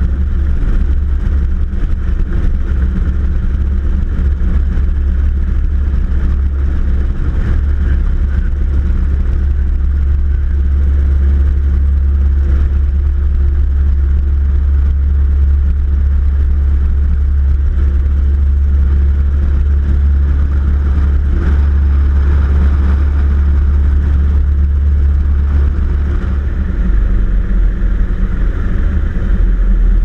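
Aeronca Champ's engine and propeller running at takeoff power, heard from inside the cabin as a loud, steady drone through the grass takeoff roll and liftoff. The low note drops slightly about three seconds before the end.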